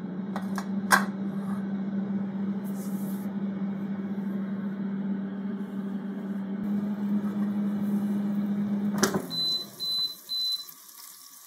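Bagotte air fryer's fan and heater running with a steady hum. About nine seconds in, a click as the basket is pulled out, the fan stops, and the fryer beeps three times.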